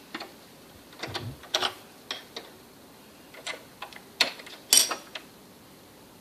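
Irregular clicks and clatter from hands working a sewing machine's parts, about a dozen sharp knocks, with the loudest pair just over four seconds in.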